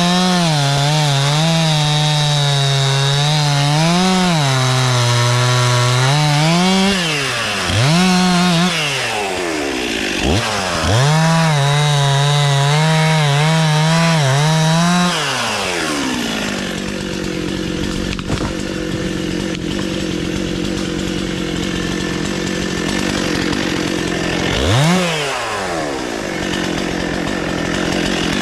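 Stihl MS 261 two-stroke chainsaw cutting into a tree trunk at full throttle, its pitch wavering under load and dipping briefly about ten seconds in. About fifteen seconds in it drops to a steady idle, with one quick rev near the end.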